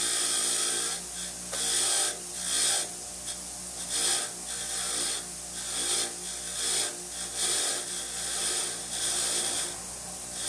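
Bench grinder running with a wire wheel brush, its motor humming steadily, as a rusty steel drive gear from a self-propelled mower wheel is pressed against the wire bristles. The scratching hiss of the bristles scouring off rust comes and goes in quick repeated strokes.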